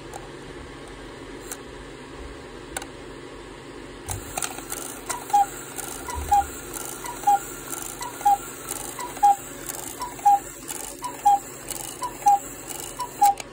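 Cuckoo clock calling: about four seconds in, a run of two-note cuckoo calls, high then low, repeats about once a second, over a steady fan hum.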